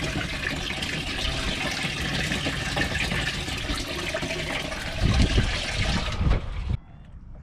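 Water running and splashing in a bass boat's livewell as a bass is released into it. A few heavier thumps come about five seconds in, then the livewell lid shuts and the water sound drops off sharply.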